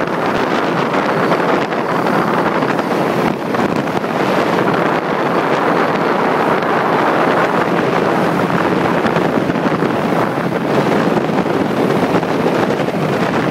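Steady wind noise buffeting the microphone aboard a fishing boat underway, with the rush of water past the hull and the boat's motor mixed in.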